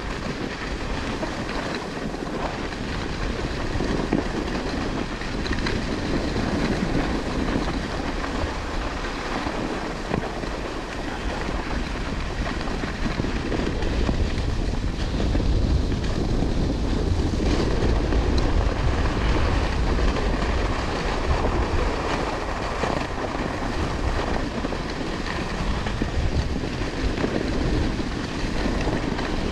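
Wind rushing over the microphone and skis running over hard groomed snow during a downhill run: a steady rushing rumble that gets louder and deeper from about halfway through.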